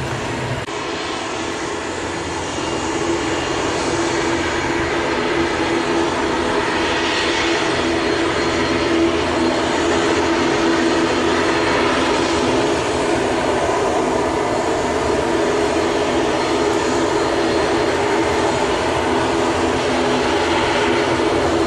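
MD-80-series airliner's rear-mounted Pratt & Whitney JT8D turbofans running with a steady jet drone and a constant hum underneath. The sound grows louder about two to three seconds in, then holds.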